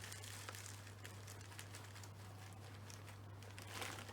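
Faint crinkling and scattered small clicks of peanuts being poured from a bag into a bird feeder, with a louder rustle near the end.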